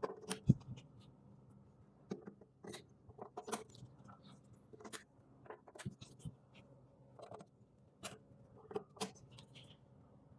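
Scattered clicks, taps and knocks of cable connectors being handled and plugged into a home battery and inverter stack, with one sharper knock about half a second in.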